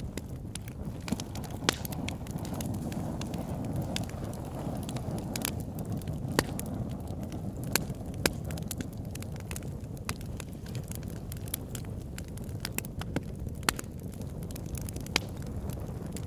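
Campfire burning: wood crackling with scattered sharp pops, several of them loud, over a steady low rumble.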